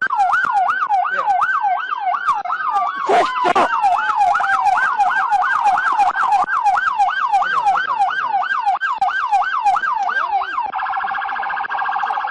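Electronic siren of a pursuing police car in a fast yelp, its pitch sweeping up and down about three times a second. About eleven seconds in it switches to a much faster, piercing warble. A brief clatter comes about three seconds in, while a slower siren tone falls in pitch under the yelp.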